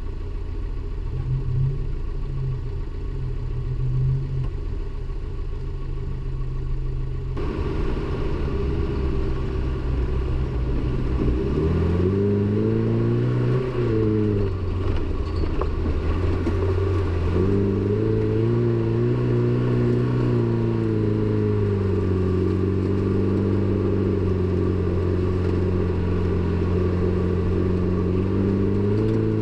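Toyota pickup's engine heard from a camera on its hood: a low rumble at first, then revving up and easing back twice, about twelve and eighteen seconds in, before running at a steady pitch.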